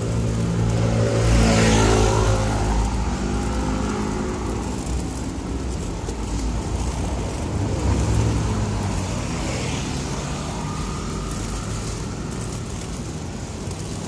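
Motor vehicles driving past close by on the road, engine and road noise swelling to a peak about two seconds in and again about eight seconds in, then easing to a steadier hum.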